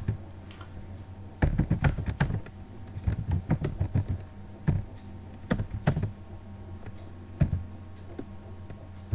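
Computer keyboard typing in irregular bursts of key clicks with short pauses between them, over a steady low hum.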